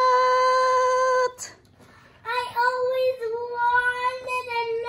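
A young girl's excited, high, drawn-out vocal note, like a long sung "ooooh", held steady for over a second. After a brief pause comes a second, longer note that wavers a little in pitch.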